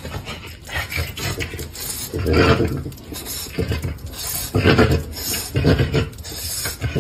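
French bulldog vocalizing in short bursts, three louder ones about two, five and six seconds in.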